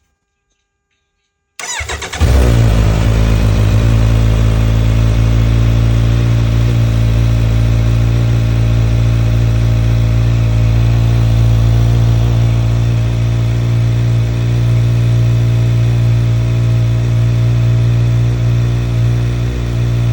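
Kawasaki Z900 inline-four motorcycle engine started: the electric starter cranks briefly about a second and a half in, the engine catches, then idles steadily.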